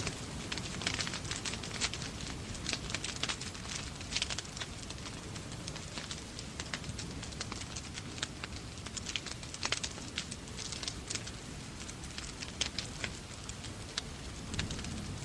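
Wood fire in a fireplace crackling, with frequent irregular sharp pops and snaps over a steady low rumble, mixed with the even hiss of rain.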